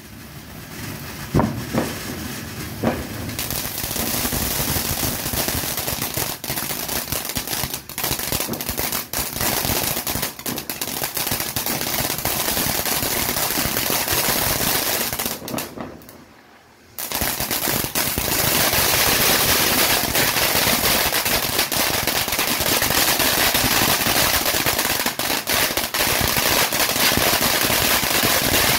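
Phantom Fireworks Snowflake ground fountain spraying sparks with a dense, rapid crackling. The crackle drops away for about a second past the middle, then comes back louder and denser.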